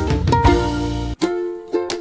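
Background music of plucked-string notes over a low bass layer; the bass drops out just after a second in, leaving the plucked notes.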